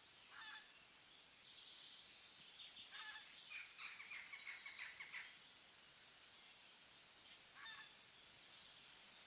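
Birds calling over faint forest ambience: a short call about half a second in, a run of rapid chirping calls from about two to five seconds in, and another short call near the end.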